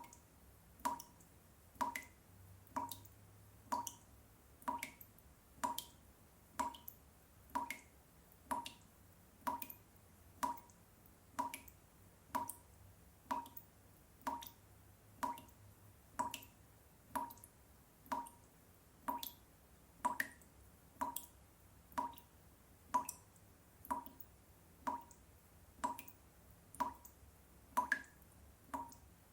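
A tap dripping steadily, about one drop a second, each drop a short sharp drip.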